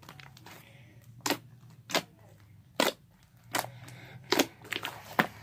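A large batch of slime being poked and pressed with the fingers, giving a series of sharp pops, about one a second at first and coming faster near the end.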